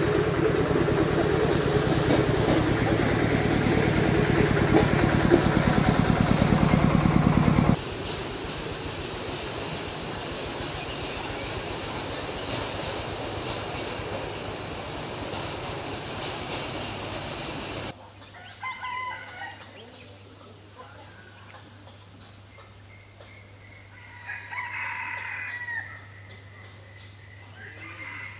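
A loud steady noise with a low hum for about the first eight seconds, cutting suddenly to a quieter hiss. After a second cut, short bird calls come through, then a rooster crows once, a bit past the two-thirds mark.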